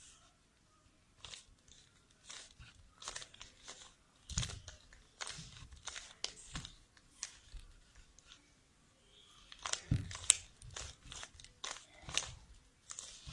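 Plastic 3×3 Rubik's cube being turned by hand: irregular clicking and rasping as the layers are twisted, with louder clusters of turns about four and ten seconds in.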